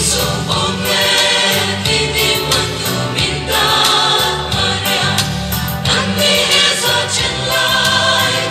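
Music: a song with group singing over instrumental accompaniment.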